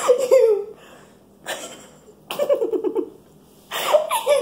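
Girl laughing in several short bursts, with a quick run of 'ha-ha-ha' pulses about halfway through.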